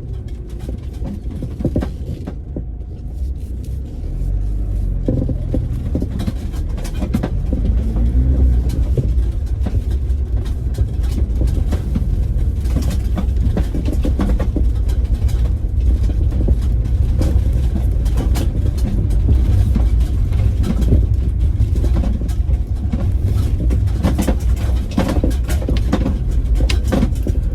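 Iveco Daily van driving, heard from inside the cab: a steady low engine and road rumble that grows louder about four seconds in, with frequent short knocks and rattles as it goes over the bumpy farm track.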